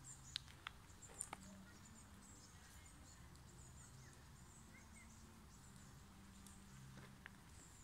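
Near silence: faint outdoor background with a few soft clicks, several in the first second and a half and one near the end.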